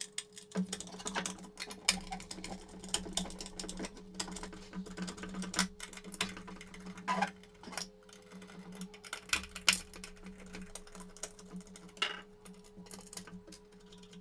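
Small screwdriver backing screws out of a hard plastic display base: irregular light clicks and scrapes of the tip in the screw heads, with sharper knocks as the plastic base is handled. A faint steady hum sits underneath.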